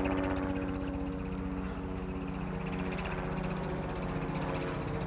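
An engine running steadily: an even, pitched hum with a fast low throb that doesn't change.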